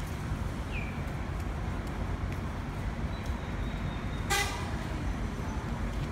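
Double-decker bus running with a low, steady rumble, and a short horn toot about four seconds in.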